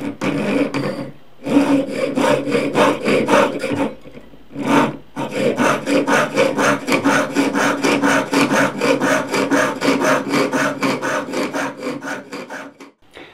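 Jeweler's saw cutting 22-gauge copper sheet in quick, even up-and-down strokes, about five a second, with brief pauses about a second in and again around four seconds in.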